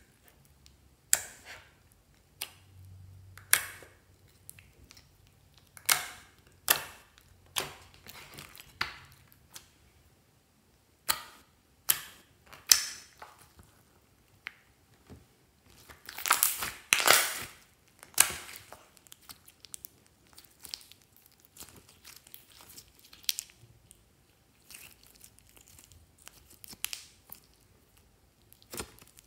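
Clear slime being stretched, folded and squeezed by hand, giving irregular sticky pops and crackles as air pockets burst. About halfway through comes a denser run of crackling.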